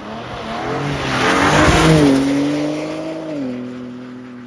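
BMW M3 saloon's twin-turbo straight-six driving past under throttle, its note wavering and then climbing, with tyres hissing over the snowy road, loudest about two seconds in. About three and a half seconds in the engine note steps down and fades as the car pulls away.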